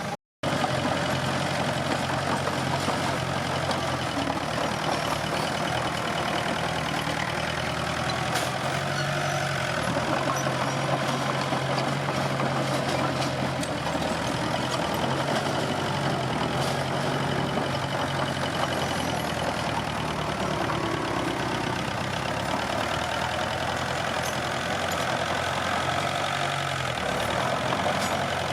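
Komatsu D21P bulldozer's diesel engine running steadily, with a brief cut-out of all sound just after the start.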